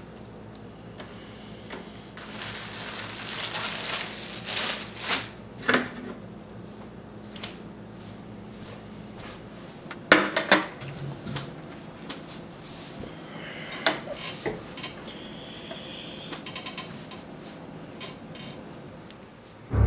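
Sandwich-making sounds: a plastic bread bag rustles and bread is handled, with a few small clicks. About halfway through, a ceramic plate is set down on a table with a sharp clack. Scattered small handling clicks follow as the sandwich is eaten, and a low steady hum runs under the first half.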